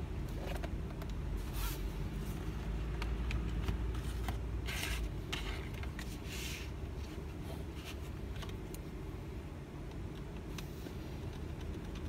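Plastic laptop case being handled and turned over on a cardboard sheet: a few scrapes and light knocks, over a steady low rumble.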